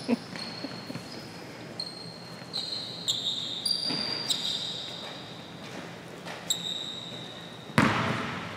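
Sneakers squeaking on a hardwood gym floor and a basketball bouncing, with the echo of a large gym. Several short high squeaks come and go, and a louder thud sounds near the end.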